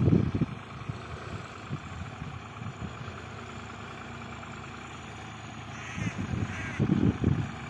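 New Holland 55-56 tractor engine running steadily while ploughing. Crows caw twice near the end. Low rumbles come at the start and again near the end.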